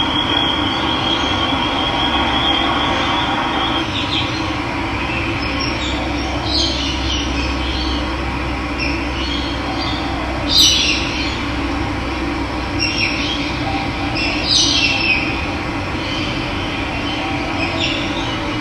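Steady rush of running water, with birds chirping over it in short calls several times, the loudest about ten seconds in. A thin, high, steady trill sounds for the first few seconds and stops.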